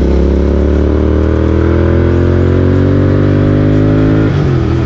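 Royal Enfield Continental GT 650's 648 cc parallel-twin engine pulling under load. Its pitch climbs steadily as the revs build, then the revs drop sharply a little over four seconds in.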